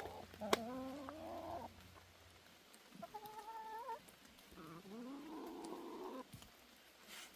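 Hens calling at feeding time: three drawn-out calls, each about a second long, with a sharp click near the first.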